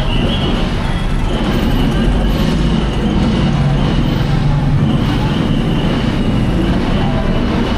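Loud, steady rumbling vehicle noise with a thin high whine that comes and goes.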